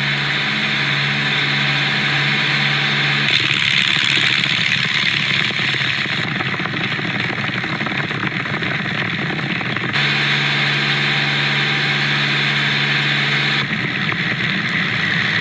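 Small high-wing light aircraft's single piston engine and propeller running steadily in flight, heard from inside the cockpit with heavy wind noise on the microphone. The low drone changes abruptly a few times, dropping out about three seconds in and returning about ten seconds in.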